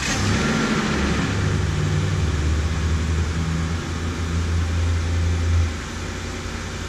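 Ford F-150 pickup's engine idling moments after being started, running loud and a little uneven, then settling to a quieter, steadier idle about six seconds in.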